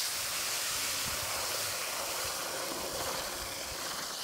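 Hose-fed water wand jetting water into wet soil under a concrete sidewalk, a steady hiss, washing out a tunnel for the pipe.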